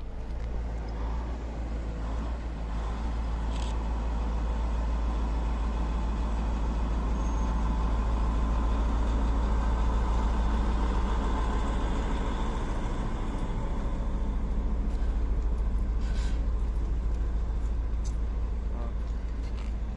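Train running with a steady low rumble that swells over the first several seconds and then holds.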